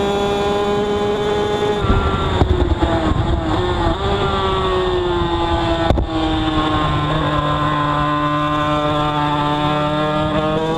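Two-stroke racing motorcycle engine heard onboard. It drops in pitch as the bike slows into a corner, then holds a low, steady note without picking up, and only starts to rise near the end. The bike is not accelerating, which the rider puts down to a flooding carburettor.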